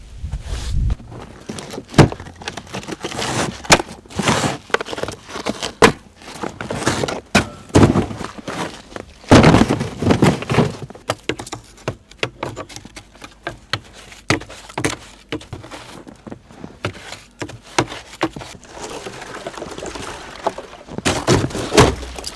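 Irregular knocks and thumps, some sharp and loud, with rustling in between.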